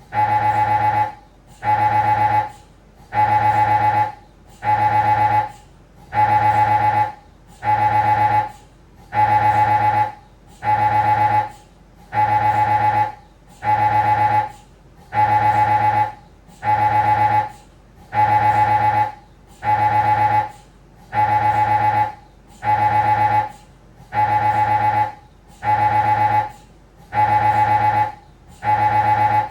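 Siemens Magnetom Avanto Fit MRI scanner's gradient coils running a scan sequence: a loud, high buzzing tone that comes in even pulses about a second long with short gaps, roughly one every second and a half.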